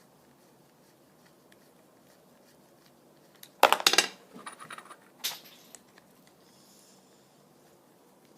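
A glass TIG welding cup dropped onto a hard floor about three and a half seconds in: a sharp clatter of several quick bounces, then a few lighter rattles as it settles. The cup does not break.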